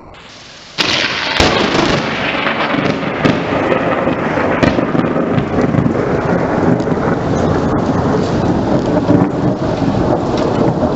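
A loud, dense rumbling and crackling noise that starts abruptly about a second in.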